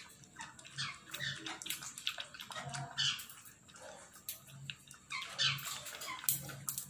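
Two Indian puppies lapping milk from a plastic bowl: quick, irregular wet laps and slurps.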